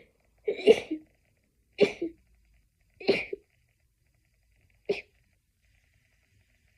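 A person's stifled sneezes in a sneezing fit: four in a row, about a second or so apart, the last one short and clipped.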